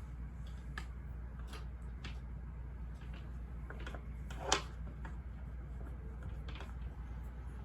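Steady low background hum of ambient noise, with scattered light clicks and taps and one sharper tap about halfway through.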